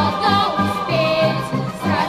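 Boys' voices singing a lively tune together to orchestral accompaniment, over a quick, even beat in the bass of about four pulses a second.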